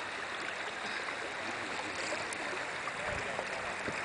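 Steady sound of flowing river water running over a shallow streambed.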